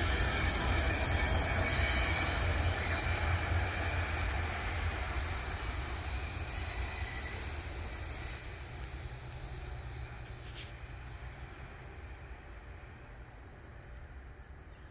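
Double-stack intermodal freight train's last cars rolling away around a curve, with wheels squealing, the rumble fading steadily until it is faint.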